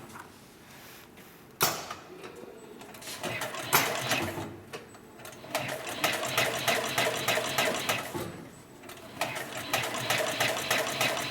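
Heavy-duty 204 370 upholstery sewing machine stitching. A couple of single knocks come first, then a fast, even run of stitches that pauses briefly and starts up again.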